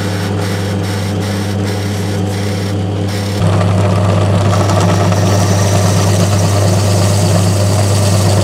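Drill press motor running with a steady hum as a twist bit bores into a wooden block, with short crackles as the bit cuts. A little over three seconds in the sound steps up louder as a counterbore cutter machines a recess into wood.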